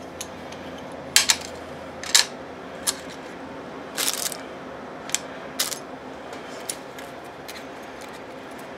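Steel piston rings and small engine parts clinking lightly as they are handled and set on and off a digital scale: about a dozen short, sharp metallic clicks at irregular intervals, the strongest about a second, two seconds and four seconds in.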